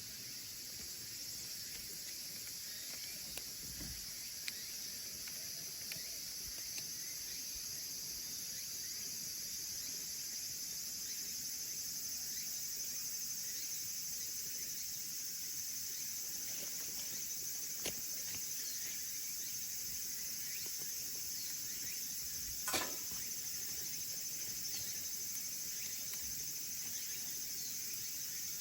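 Firewood burning in a small wood stove, crackling with a few scattered sharp pops, the loudest about 23 seconds in, over a steady high hiss.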